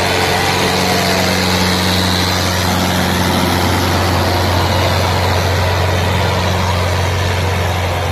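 Fiat 640 tractor's four-cylinder diesel engine running steadily under heavy load as it pulls a disc harrow through the soil, a loud, even, deep drone.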